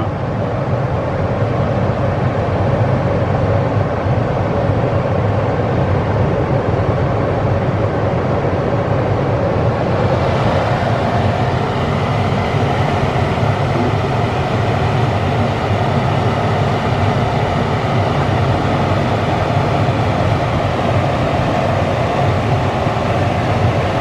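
Furnace air-handler blower running steadily, switched on by a jumper from R to G that bypasses the zone control board: the equipment runs when jumped, so the zone board is not passing on the thermostat's call. A louder airy rush joins the hum about ten seconds in.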